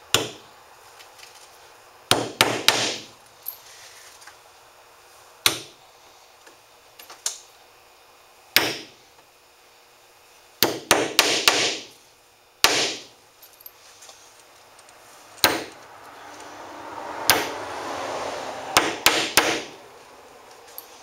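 Hammer driving nails through a beaver hide into a wooden board: single taps and short runs of several quick blows, with pauses between nails.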